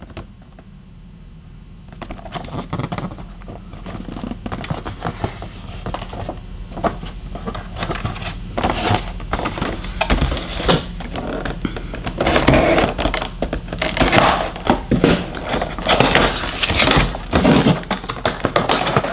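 Packaging crinkling and rustling as it is handled, a dense run of irregular crackles. It starts about two seconds in and grows louder and busier toward the end.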